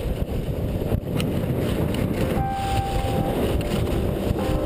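Wind rushing over an action camera's microphone while riding fast across snow behind a kite: a dense, steady low rumble, with a couple of knocks about a second in.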